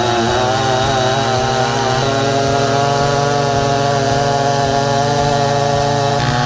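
Large two-stroke chainsaw running at high speed, its pitch wavering for the first couple of seconds, then holding steady, with a shift in pitch near the end.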